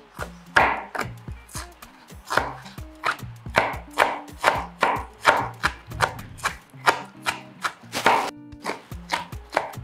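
Kitchen knife chopping onion with quick, even strokes, about two to three a second.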